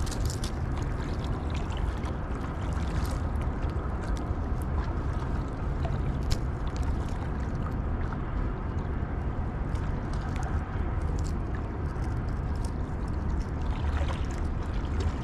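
Steady low rumble of wind on the microphone over water lapping against shore rocks, with a few light clicks as gloved hands handle a small fish on a lure.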